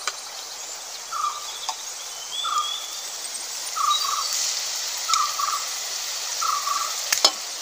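A short, buzzy animal call repeated about every second and a quarter, over a steady sizzle from onions frying in the wok. A sharp metallic click near the end.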